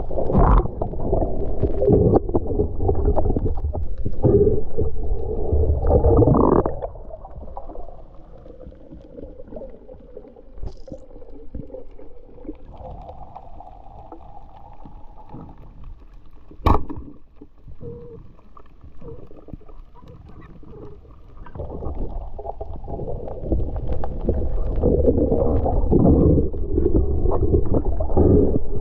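Muffled underwater rushing and bubbling of water as a spearfisher swims with a camera. The sound is loud at the start and again near the end and quieter in the middle, with one sharp click a little past halfway.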